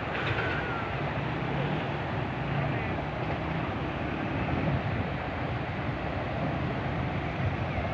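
Steady rushing noise of the flooded Chenab River's fast current swirling past concrete bridge piers, with a low rumble underneath.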